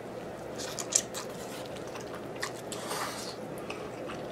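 Close-up mouth sounds of eating noodles: a few wet smacking clicks about a second in, then a short slurp about three seconds in.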